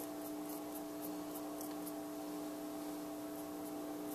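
Faint, irregular light scratching of weathering chalk powder being rubbed onto the edges of small painted styrene plates, over a steady low hum.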